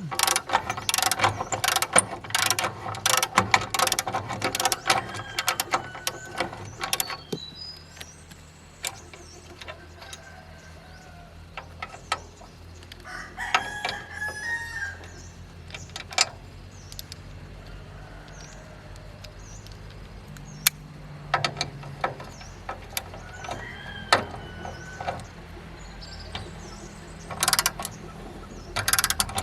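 Hand tools clicking and knocking on metal in quick runs during a tractor repair. A rooster crows in the background about halfway through and again later.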